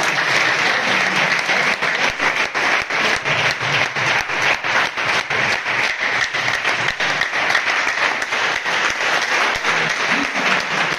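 Audience applauding: many hands clapping steadily and densely throughout.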